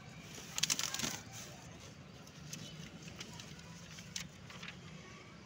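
Corrugated cardboard box being cut and torn open with a small knife: a burst of crackling and tearing about half a second in, then scattered rustles and clicks as the cardboard flaps and a paper slip are handled.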